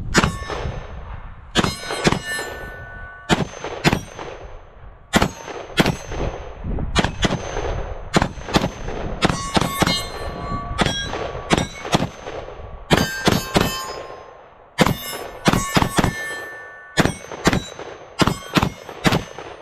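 Springfield Armory Hellion 5.56 bullpup rifle fired semi-automatically in quick strings of two to five shots with short pauses, emptying the magazine until the bolt locks back. Many shots are followed by a brief ringing tone.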